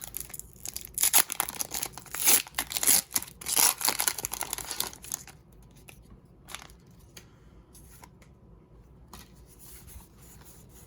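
Foil Pokémon booster pack wrapper being torn open and crinkled: a run of loud rips and crackling rustles over the first five seconds, then only faint rustling and light clicks as the cards are handled.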